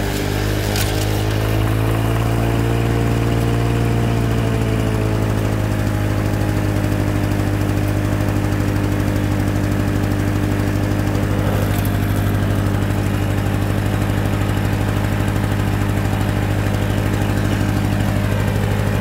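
Victa Commodore 160cc two-stroke lawnmower engine running steadily while cutting thick grass, its pitch rising and falling slightly a couple of seconds in, then holding steady.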